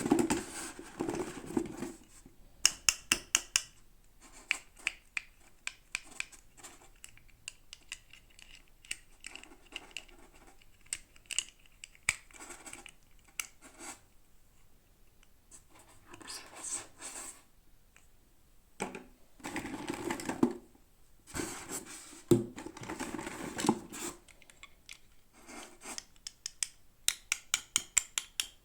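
Hands unboxing small toys, with the packaging rustling and scraping in several bursts and runs of sharp clicks and taps in between, quickening to a rapid series of clicks near the end.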